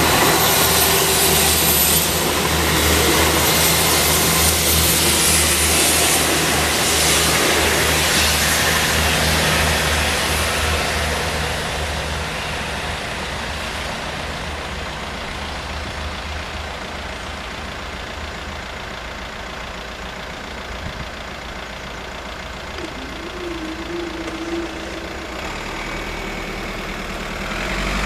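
South Western Railway Class 159 diesel multiple unit passing over a level crossing: its diesel engines and wheels on the rails are loud for the first several seconds, then fade away as the train departs. A low rumble builds again near the end.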